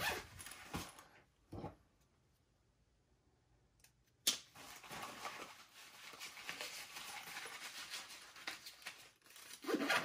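Nylon backpack and accessory pouches being handled: fabric rustling and rasping, with a near-silent pause about two seconds in, broken by a sharp click about four seconds in.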